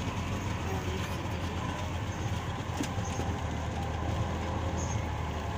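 Auto-rickshaw engine running steadily with road noise, heard from the open-sided passenger seat.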